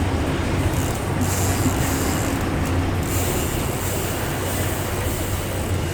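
Fishing boat's engine running steadily as a low hum, under an even rush of wind and water noise.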